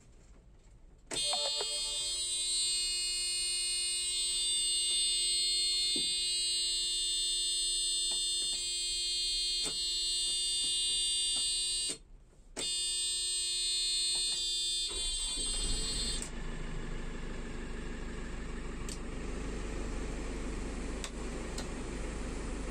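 An electronic warning buzzer sounds steadily for about fourteen seconds, breaking off briefly about 12 s in and stopping around 15 s in. A steady engine runs after it.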